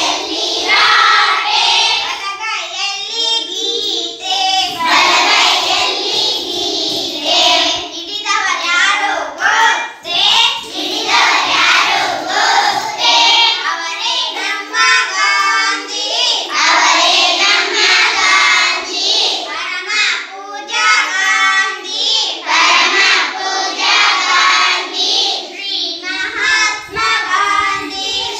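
A group of young children singing a song together, loudly and in chorus.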